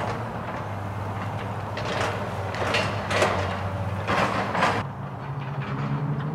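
Tracked excavator at work: its diesel engine hums steadily while several loud, harsh scraping and crashing bursts come in the middle, with a higher engine note setting in near the end.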